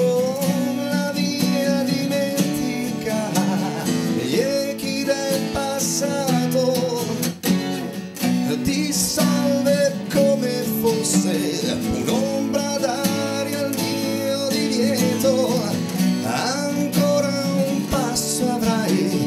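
Live acoustic band: several acoustic guitars strumming a pop-rock song, with a male voice singing over it in places.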